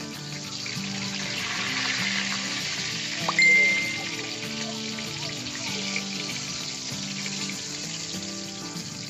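Tuna pieces frying in hot oil, a steady sizzle that swells about two seconds in, with background music underneath. About three and a half seconds in, a short sharp ringing tone stands out as the loudest sound.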